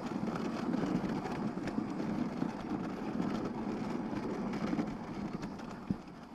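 Dog sled gliding over snow: a steady rushing noise of the runners and wind on the microphone, with a light knock near the end.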